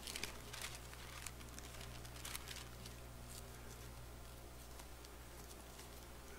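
Faint paper rustling and light handling clicks as Bible pages are leafed through, over a low steady hum.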